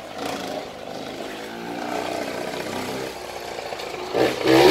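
Small motocross dirt bike engine running at low revs, with a louder burst near the end.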